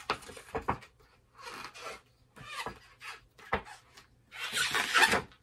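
A sheet of heavy 280 GSM high-gloss photo paper being folded over by hand into a card: several rubbing, scraping strokes with a few sharp clicks, the longest and loudest near the end.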